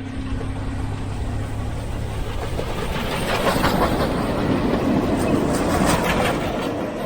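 Train arriving and passing close by: a steady low hum at first, then louder, with a dense run of wheel clatter over the rail joints in the second half.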